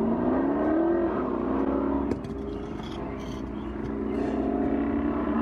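An engine running, its pitch rising during the first second, then holding steady and lifting again later.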